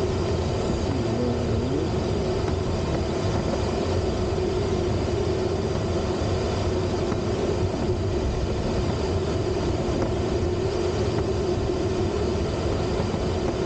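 Steady rush of airflow around a Duo Discus two-seat glider's cockpit in gliding flight, with a steady tone running through it.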